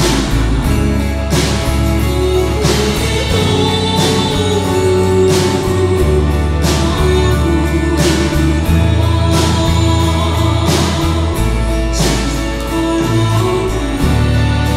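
Church worship band playing a slow song, with keyboard, guitar, bass and drums and some singing. A soft drum hit falls about every second and a half.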